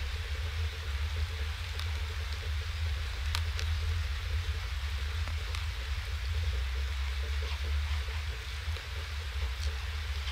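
Steady rain hiss picked up by an outdoor nest webcam, over a constant low rumble, with a few sharp taps of drops hitting close to the microphone.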